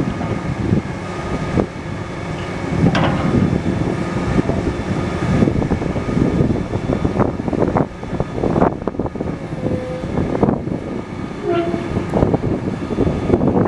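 2004 Komatsu PW200 wheeled excavator running: a steady heavy diesel engine sound with a faint high whine, broken by several short knocks or clanks.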